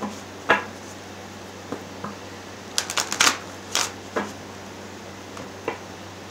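A tarot deck being shuffled by hand: short, irregular rustles and card flicks, clustered about three seconds in.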